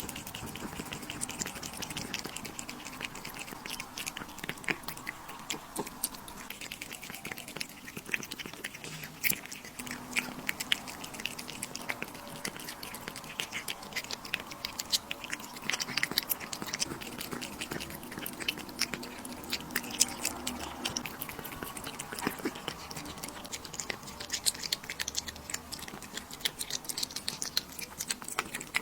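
An animal chewing crunchy food, with steady irregular sharp crunches of each bite.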